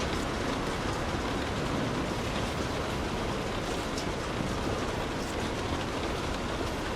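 Light rain pattering steadily on a car's roof and windows, heard from inside the cabin as an even hiss with scattered drop ticks.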